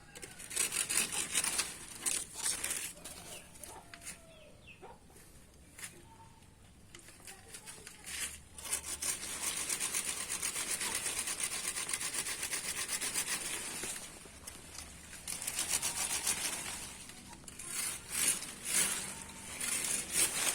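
Cocoa tree wood being sawn, a blade drawn rapidly back and forth in rasping strokes, heaviest from about eight seconds in and again near the end, with a quieter lull early on.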